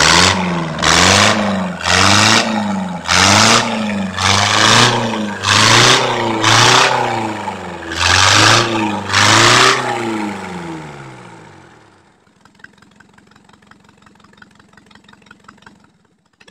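Freshly overhauled Nissan LD20 four-cylinder diesel engine, out of the vehicle, being revved by hand about once a second, each rev rising and falling in pitch, on its test run. About ten seconds in the engine sound dies away, leaving only faint rapid clicking.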